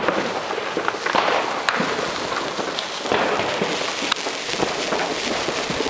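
A sparkler burning close up: a steady fizzing hiss with sharp, irregular crackles.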